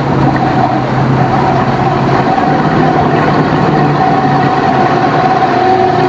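Motor vehicle's engine running steadily while under way: an even drone with a low hum and a higher tone.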